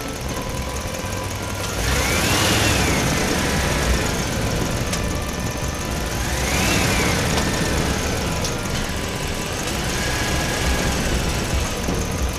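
Engine sound effect revving up and back down three times, about four seconds apart, over a steady running drone.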